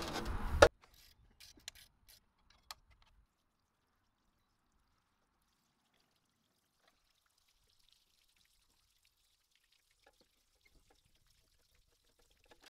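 Water rushing briefly out of a pressure-washing rig's opened blend manifold, then only a very faint trickle and a few small clicks from its plastic fittings as the check valve is worked loose.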